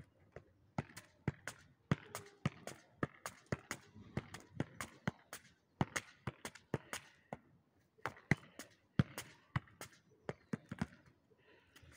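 A football being juggled: a string of sharp thumps as the ball is kept up with the feet and legs, about two to three touches a second, stopping near the end.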